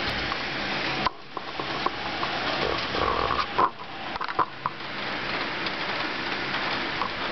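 Heavy rain against a window pane: a steady rain hiss that drops off suddenly about a second in, then comes back gusting, with scattered knocks, taps and a few short squeaks.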